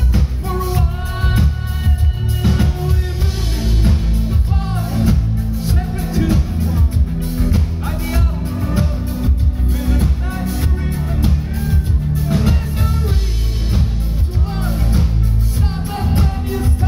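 Live synth-pop band playing through a loud PA: a male lead voice singing over synthesizer keyboards, heavy bass and a drum kit.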